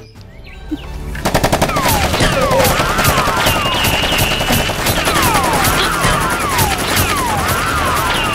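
Rapid machine-gun fire with whining ricochets, a battle sound effect, starting about a second in and going on without a break.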